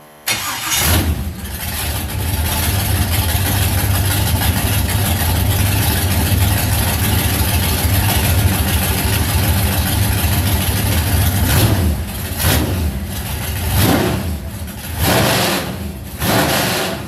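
Carbureted LS V8 in a boat, running loud through open exhaust pipes. It catches abruptly at the start and settles into a steady idle, then is revved in several short blips in the last few seconds.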